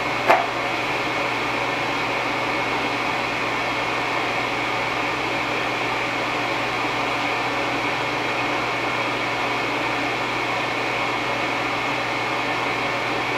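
Squirrel-cage draft inducer blower on a homemade sawdust stove running steadily, a constant whoosh of air with a low hum, pulling draft through the stove. A brief click sounds just after the start.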